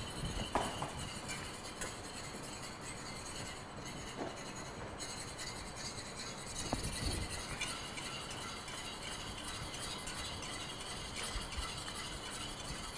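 Wire whisk beating egg yolks and water in a small metal saucepan: a faint steady swishing with a few light clinks of the whisk against the pan. It is the sabayon for a béarnaise, cooking slowly on low heat.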